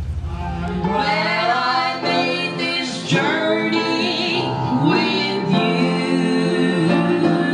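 A woman singing into a hand-held microphone, with instrumental backing.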